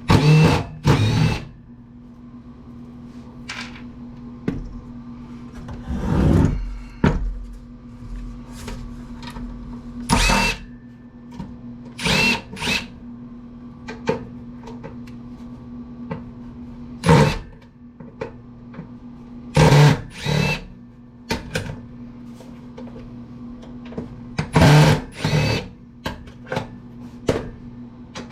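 Power drill-driver running in short bursts of about half a second, several of them in quick pairs, as screws are backed out of an amplifier's metal chassis, with small clicks and knocks in between.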